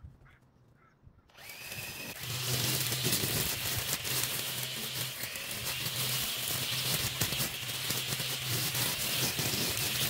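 Electric string trimmer starting up about a second in, rising to speed and then running steadily as its line cuts grass, with a steady motor whine over the hiss of the cutting.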